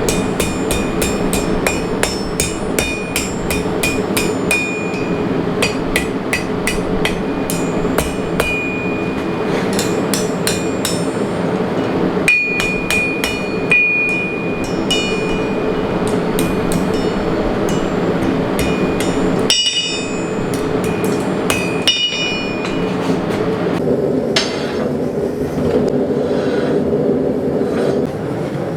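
Blacksmith's hammer forging hot 1/4-inch round steel stock, fast ringing metal strikes about three or four a second in runs with short pauses, over a steady low hum. The hammering stops a few seconds before the end.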